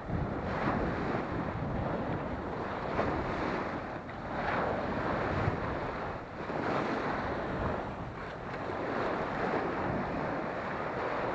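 Small waves breaking and washing up a sandy shore, swelling and ebbing every couple of seconds, with wind buffeting the microphone.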